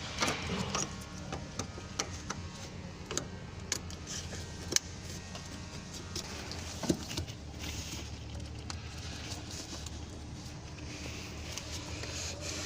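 Scattered metallic clicks and knocks of hands and tools working on car parts, two sharper knocks about five and seven seconds in, over a steady low hum.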